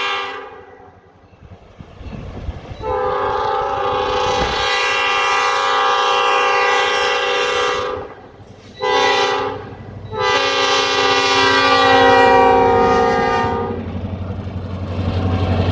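Diesel freight locomotive's air horn sounding the grade-crossing signal. One blast ends at the start, then come a long blast, a short one and another long one. As the horn stops, a low rumble from the passing train rises near the end.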